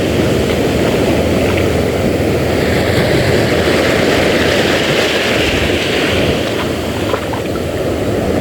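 Steady wind rushing over the microphone, mixed with sea waves washing.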